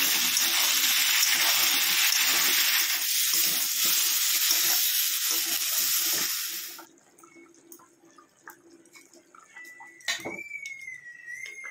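Vegetable wedges sizzling in hot oil in an iron kadai, with a metal spatula scraping and knocking as they are stirred. The sizzle cuts off abruptly about seven seconds in, leaving it much quieter, with a faint wavering whistle near the end.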